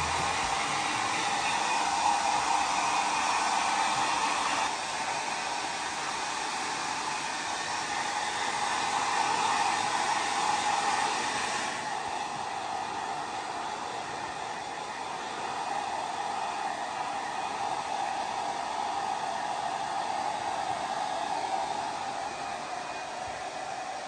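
Handheld electric hair dryer blowing steadily, its loudness and tone shifting a little as it is moved about; the high hiss thins out about halfway through.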